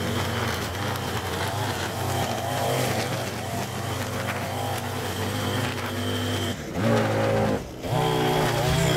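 Two-stroke Echo gas string trimmer running at high throttle, its spinning line cutting overgrown grass along a concrete sidewalk edge. The throttle eases off briefly about six and a half seconds in and again near the end, then revs back up.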